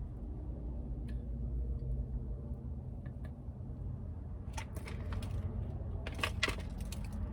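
Scattered crisp clicks and crackles from handling and biting into fried breaded chicken tenders, growing more frequent after about four and a half seconds, over a steady low hum.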